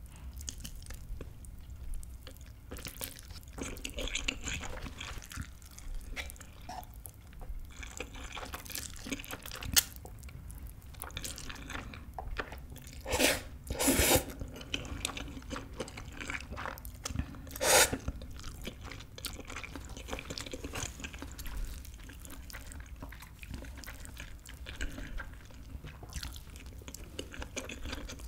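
Close-miked eating sounds: chewing mouthfuls of spicy stir-fried instant noodles, with louder slurps of noodles about 13 and 18 seconds in.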